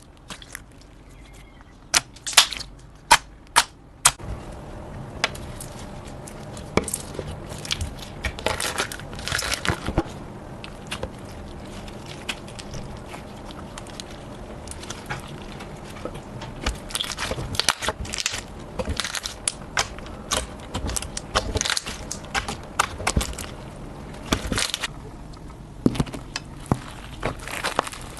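Slime being squeezed and pressed, giving crackling and clicking popping sounds: a few sharp loud clicks about two to four seconds in, then a dense, irregular run of crackles.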